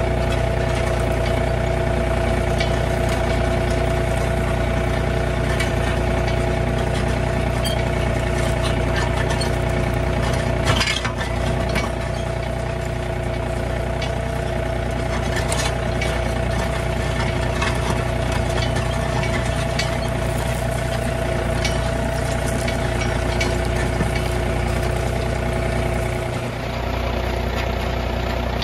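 John Deere 3025E compact tractor's three-cylinder diesel engine running steadily while it pulls a spring-tine cultivator through dry soil. A single sharp knock sounds about eleven seconds in.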